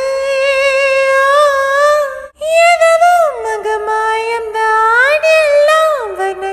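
Music: a female voice singing long held, gliding notes of a Tamil song, with a short break about two seconds in.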